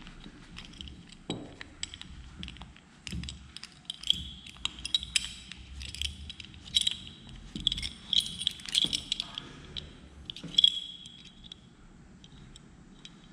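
Old rusty curved craft knife handled and wiped in a terry towel: cloth rubbing with a run of light metallic clinks and jingles, thickest in the middle and fading out near the end.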